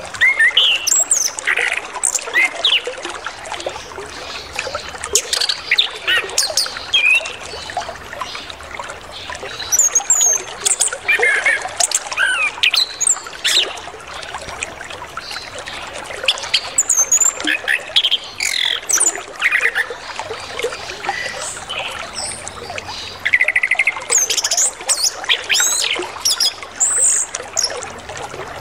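Orange-headed thrush singing in bursts of varied whistles and chirps every few seconds, over the steady trickling rush of flowing water.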